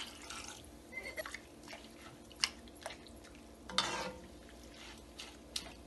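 Water poured from a glass into a pot of spinach and lentils at the start, then a metal spoon stirring the pot, with a few soft clicks and scrapes against its side and one louder scrape about four seconds in.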